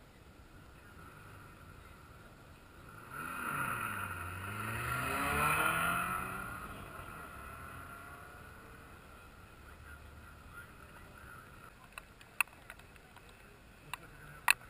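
Rally car passing on a gravel stage: the engine note dips, then climbs as the car accelerates, loudest about five to six seconds in, then fades away. A few sharp clicks near the end.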